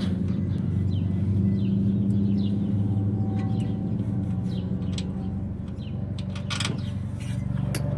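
A steady low motor hum, with a few light clicks and knocks.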